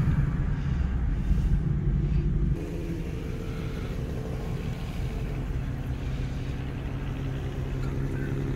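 Lexus IS F's 5.0-litre V8 running loudly at low revs, heard from inside another car. About two and a half seconds in it drops suddenly to a steady, quieter idle.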